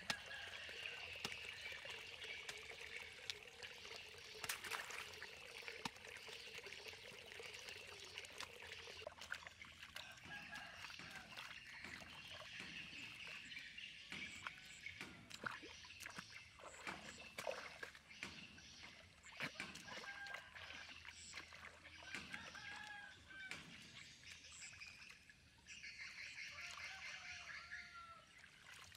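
Muddy water trickling and pouring through gaps in an earthen dam into a pool, then a hoe chopping into wet earth with splashes.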